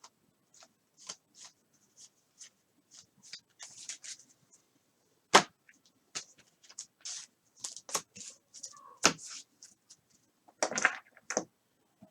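Trading cards being handled and flipped through a stack: a string of short, soft swishes and flicks, with sharper clicks about five and a half and nine seconds in.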